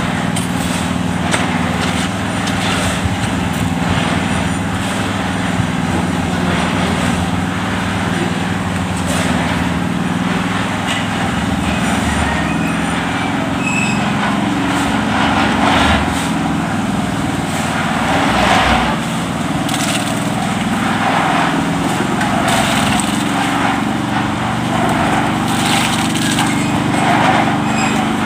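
Small engine running steadily, with frequent short knocks and scrapes of work going on over it.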